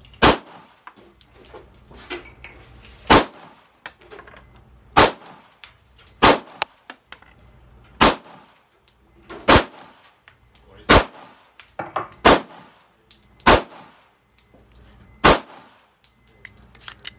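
Polymer80 PF940C, a Glock 19-pattern 9mm pistol, firing about ten single shots at a slow, deliberate pace, roughly one every one and a half to two seconds.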